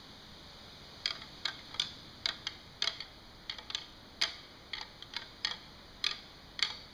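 Deer antlers tapped and ticked lightly together in soft rattling, giving a string of sharp, irregular clicks that begins about a second in. This is the gentle antler rattling that imitates bucks' light sparring, used early in the season to draw deer in.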